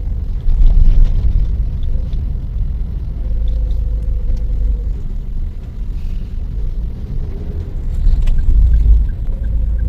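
Car driving, heard from inside the cabin: a steady low rumble of engine and road noise. A faint regular ticking comes in near the end.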